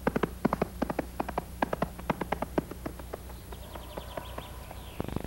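Horse hooves clopping: a quick, uneven run of hoofbeats, several a second.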